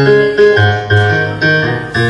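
Keyboard played with a piano sound: chords struck about twice a second over a moving bass line. This is the intro's pedal-point bass figure, with repeated notes held against changing bass notes.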